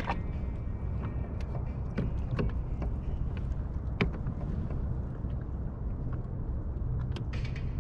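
Fishing kayak on calm sea: a steady low rumble of water and wind, with scattered light knocks and clicks from the hull and gear, the sharpest about four seconds in. Music comes in near the end.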